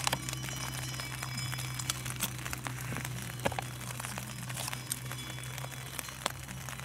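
Long-handled spoon scraping and clicking inside a foil freeze-dried meal pouch, the pouch crinkling now and then, over a steady low hum.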